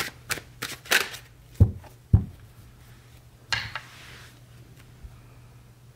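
Tarot cards being handled on a table: a few crisp snaps and taps, two dull knocks about a second and a half and two seconds in, then a brushing swish of a card sliding about three and a half seconds in.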